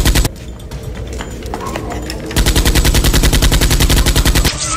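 Rapid automatic-gunfire sound effect laid over a Nerf blaster firing: a short burst right at the start, then a longer burst of about two seconds starting about halfway through.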